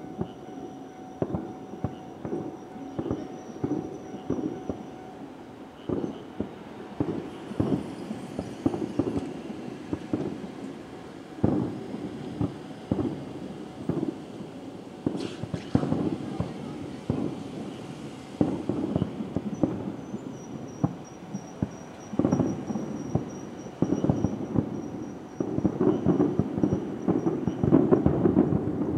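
Aerial firework shells bursting in quick irregular succession, with dull booms and crackles; the bursts come thicker and louder over the last few seconds.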